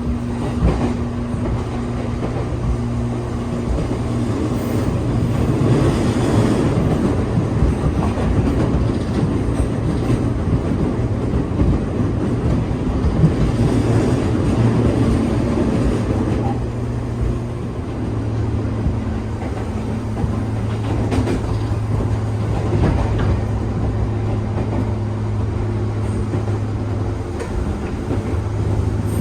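Riding inside a JR 415 series 1500 subseries electric multiple unit as it runs along the line, with steady running noise, wheels clacking over rail joints and a steady low hum.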